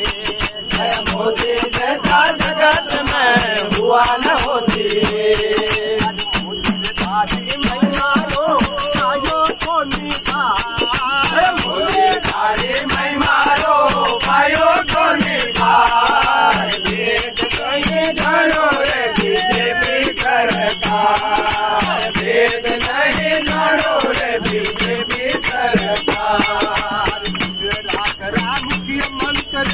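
Men singing a devotional bhajan together, with small brass hand cymbals (manjira) jingling continuously in a fast, steady beat.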